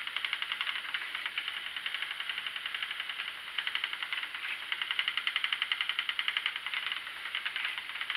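Schacht Sidekick spinning wheel running while yarn is chain-plied, the flyer and bobbin turning with a rapid, even clicking of about eight ticks a second that grows louder and softer in spells.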